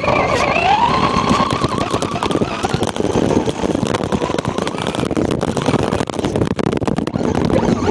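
Brushless Traxxas Rustler RC truck driving fast on a snowy road, heard from a camera riding on the truck: the electric motor's whine rises in pitch about half a second in and then holds. Under it run steady rattling and clattering from the chassis and tyres over the snow.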